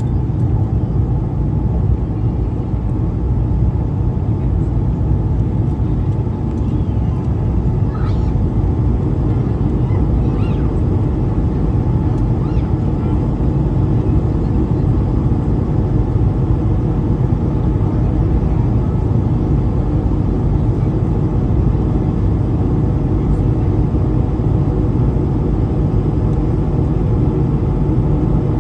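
Steady, loud low rumble of an Airbus A220-300 in flight, heard from inside the cabin: its Pratt & Whitney PW1500G geared turbofans and the airflow drone evenly without change.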